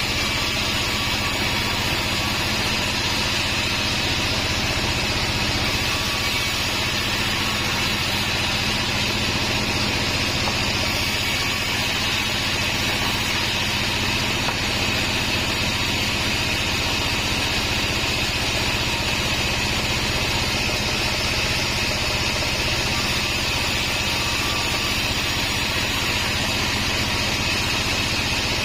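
Band sawmill running steadily, a constant machine hum with a hissing, whining upper band and no pauses or changes.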